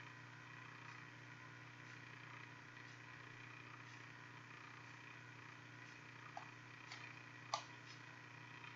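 Near silence: a steady faint electrical hum, with a few faint computer-mouse clicks near the end.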